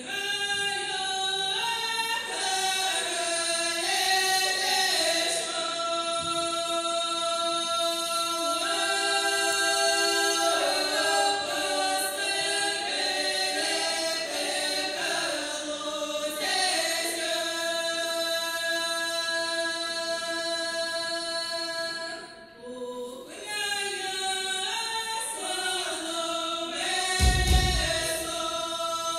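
A choir singing long held chords in close harmony, with a brief break about 22 seconds in. A low thump sounds near the end.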